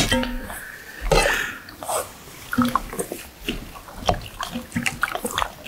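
Squid and radish soup being ladled from a stainless steel pot into a metal bowl: liquid sloshing and splashing, with repeated light clinks of the ladle against the metal.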